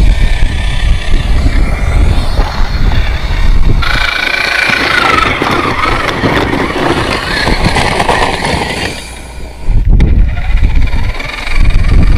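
Tekin 35-turn brushed crawler motor and drivetrain of an RC rock crawler whining as it climbs, the pitch bending up and down with throttle, over a heavy low rumble. The sound changes abruptly several times.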